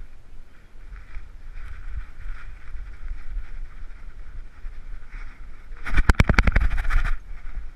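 Handling noise of a dog-worn GoPro: steady rubbing and low rumble as the dog moves, then, about six seconds in, a second-long burst of rapid rattling knocks, roughly eight a second, as the dog's body movement jolts the camera mount.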